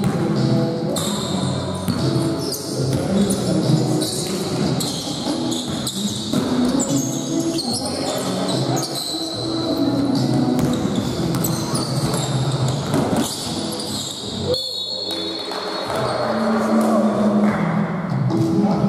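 Indoor basketball game in a reverberant gym: a ball bouncing on the hardwood, sneakers squeaking, and players' voices.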